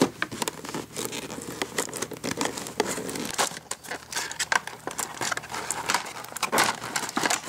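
Cardboard toy box and its clear plastic window film crinkling and crackling as the box is opened by hand, in many small irregular crackles.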